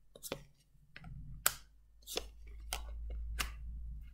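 Tarot cards being drawn and laid down on a cloth-covered table: about five sharp card snaps and slaps, the loudest about a second and a half in, with a low rumble of handling underneath from about a second in.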